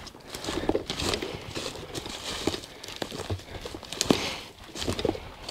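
Irregular footsteps on dirt with rustling of brush and gear as a person walks along a narrow trench.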